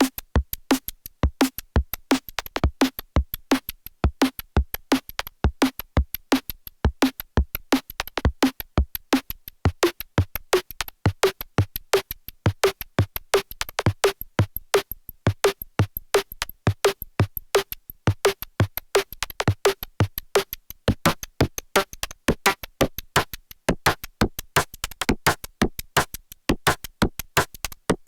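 Arturia MiniFreak synthesizer playing a preset: a fast, steady sequenced pattern of short, percussive, drum-machine-like notes. The repeating note steps up in pitch about ten seconds in, and low bass notes join later.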